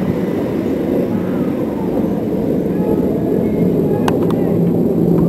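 Jet aircraft of a massed carrier air-wing flyby passing overhead: a steady, dense rumble that grows slowly louder, with a couple of faint clicks about four seconds in.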